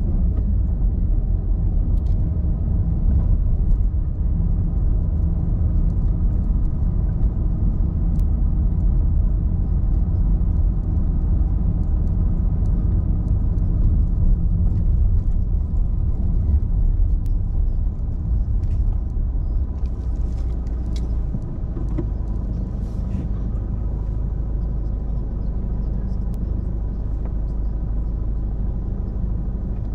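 Car driving, with steady low engine and road rumble; about two-thirds of the way in it settles to a smoother, slightly quieter drone.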